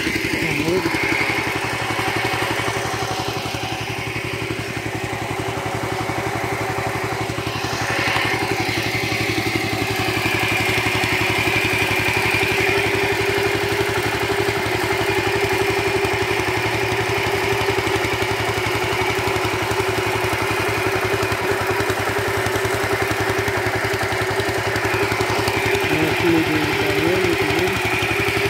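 Small stationary engine of a motor-driven irrigation water pump running steadily, pumping water out to a hose.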